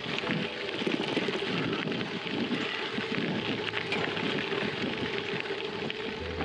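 Bicycle tyres rolling over a loose gravel road: a steady, dense crunching and crackling of small stones.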